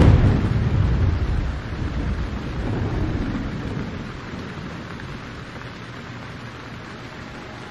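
Low rumble of thunder, loudest at the start, fading and swelling again about three seconds in, over a steady hiss of rain.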